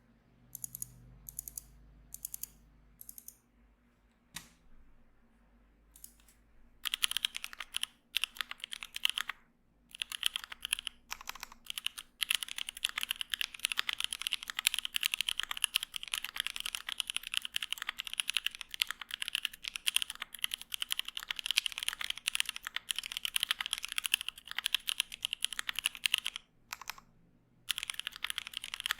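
KBDfans D65 mechanical keyboard with lubed Tangerine 67g linear switches and GMK Laser keycaps being typed on. It starts with a few separate keystrokes, then fast continuous typing from about seven seconds in, with a short pause near the end.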